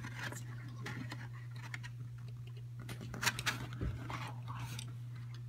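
Light plastic clicks and scratches from hands fitting a Nest thermostat's plastic base onto its plastic trim plate and pushing the wires through, with a short run of sharper clicks a little past the middle, over a steady low hum.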